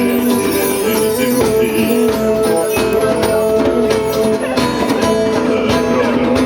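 A band playing live: an instrumental passage with held notes and a steady beat, no singing.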